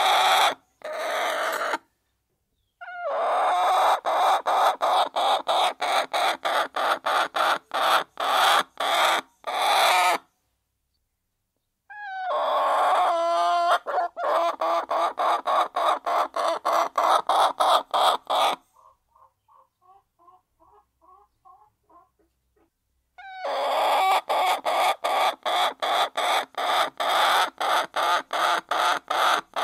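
Hens clucking in fast rhythmic runs, about three clucks a second, in stretches of several seconds that cut off abruptly into silence; a run of softer, quieter clucks comes around the middle.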